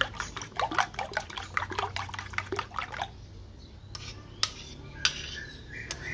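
Metal spoon beating raw eggs in a ceramic bowl: rapid clinking of the spoon against the bowl for about three seconds, then a few single taps as the spoon is lifted and stirred more slowly.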